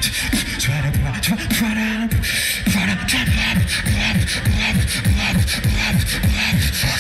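A beatboxer performing into a handheld microphone through a PA: a fast beat of vocal kick, snare and hi-hat sounds over a deep pitched bass line that slides up and down, settling into a tight repeating pattern about two seconds in.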